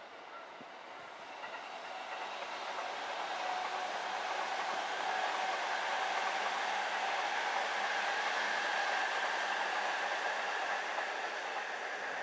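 E233-series electric commuter train running past on the rails, growing louder over the first few seconds and then staying loud, with a steady tone over the rail noise.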